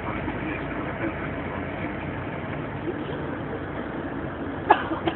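Steady engine and road noise of a moving bus heard from inside the cabin, with two sharp knocks, half a second apart, near the end.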